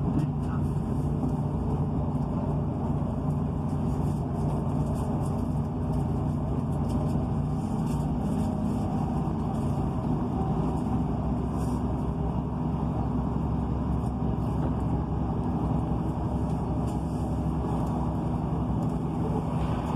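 Class 158 diesel multiple unit running at speed, heard from inside the carriage: a steady drone from the underfloor diesel engine with the rumble of wheels on the rails.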